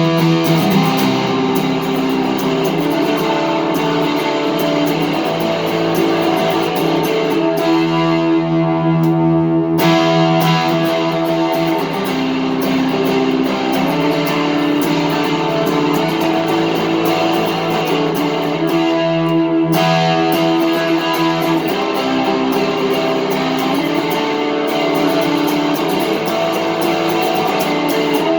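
Electric guitar with three GFS Lil' Killers humbucker pickups, all three switched to full humbucker, played through an amp with a little overdrive: ringing strummed chords that change every few seconds.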